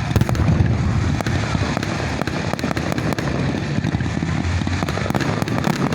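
Fireworks display: a rapid, continuous scatter of sharp crackling bursts over a steady low rumble of bangs.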